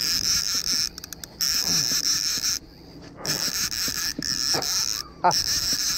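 Fishing reel drag buzzing in several long runs, broken by short stretches of rapid clicking, as hooked fish pull line off the spool.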